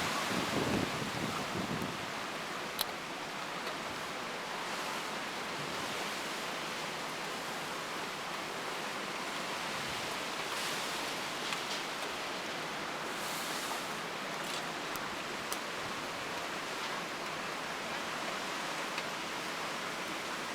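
Steady rush of hurricane wind and storm surf, with a few faint clicks scattered through it.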